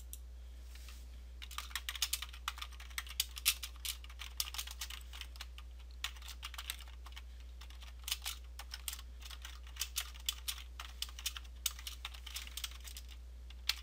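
Typing on a computer keyboard: irregular runs of key clicks starting about a second and a half in, with short pauses between runs. A steady low hum lies underneath.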